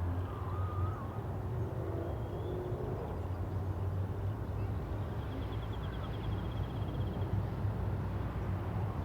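Suburban evening ambience: a steady low hum of distant traffic, with faint far-off calls and a high, rapid bird trill lasting about two seconds midway.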